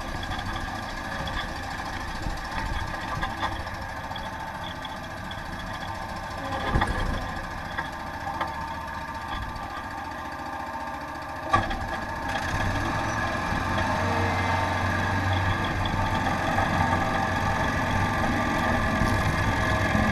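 Craftsman YTS4500 lawn tractor's 26 hp engine running steadily with its 42-inch snow thrower attachment. A sharp knock comes about eleven seconds in, and the running gets louder and deeper soon after.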